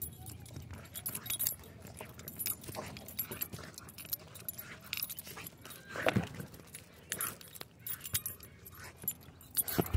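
A dog shakes and tugs a knotted rope toy, its metal collar tags jingling with each jerk of the head, among irregular scuffs and knocks of the rope and paws on dirt.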